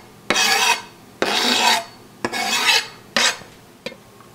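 Hands rubbing thyme leaves together over the soup pot to crumble them in: four brisk rasping strokes about a second apart, followed by a short click near the end.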